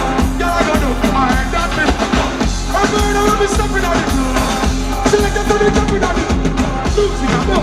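Live reggae band music at concert volume, with a steady drum beat, bass and a melody line.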